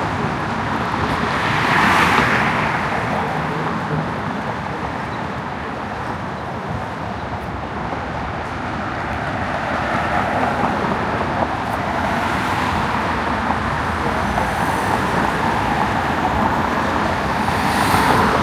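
City street traffic: a steady wash of road noise from cars and other motor vehicles, with a vehicle passing close about two seconds in and another near the end.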